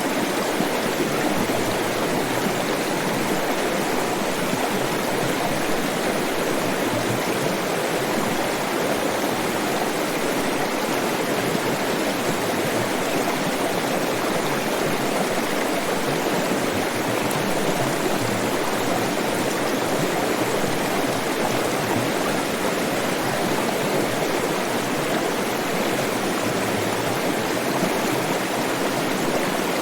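Flowing stream water, a steady rush and gurgle of running water.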